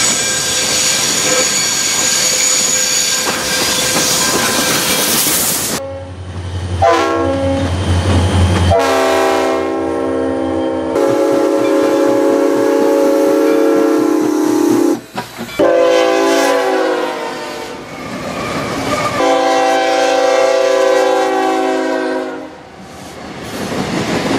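Edited run of train sound clips with abrupt cuts between them. It opens with a locomotive working hard, then gives several long, sustained blasts of multi-chime locomotive whistle, one after another from about nine seconds in.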